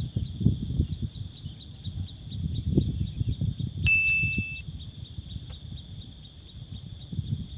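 A single bell-like ding about four seconds in, a sound effect, over a steady high insect chorus and low, irregular rumbling.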